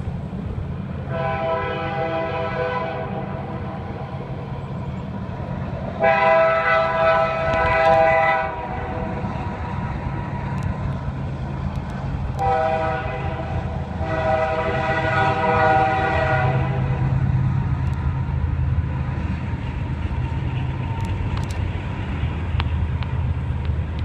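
Freight train's locomotive air horn sounding the grade-crossing signal in a chord of several tones: long, long, short, long, the second blast the loudest. Under it runs the steady low rumble of the approaching train, which grows louder over the last several seconds as the train reaches the crossing.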